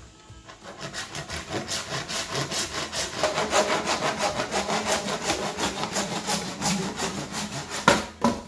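Handsaw cutting through 3-inch PVC pipe: rapid back-and-forth rasping strokes, about three a second, then two sharp knocks near the end as the cut goes through.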